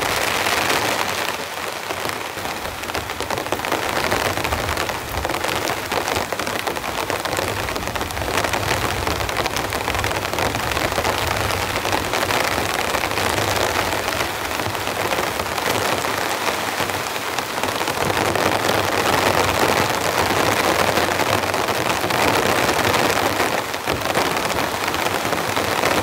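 Heavy rain falling steadily on a tarp and the ground.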